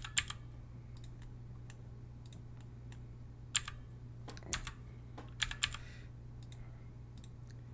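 Computer keyboard keystrokes and mouse clicks: a handful of sharp, scattered clacks, a pair right at the start and a cluster a little after halfway, over a steady low hum.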